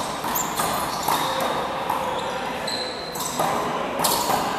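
Rubber handball smacked by hands and slapping off the wall in a one-wall handball rally, a handful of sharp smacks echoing in a large hall, with a brief high squeak near the middle.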